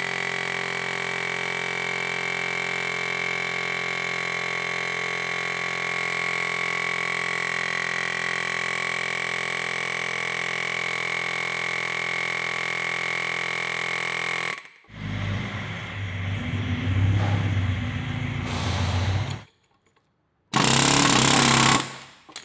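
Pneumatic air hammer (air chisel) hammering steadily on the end of a rust-seized axle shaft in an E46 BMW M3 rear wheel hub, working to drive the shaft's splines out of the heated hub. It stops suddenly about fifteen seconds in; rougher, uneven bursts follow, and there is a short gap before a last loud burst near the end.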